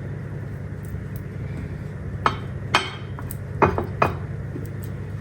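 Kitchen utensils and dishes clinking: four sharp clinks in the second half, over a steady low hum.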